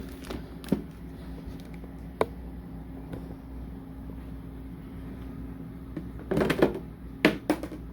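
Hard plastic parts of a bottle sterilizer clicking and knocking as they are handled, a few single clicks, then a quick cluster of knocks near the end, over a steady low hum.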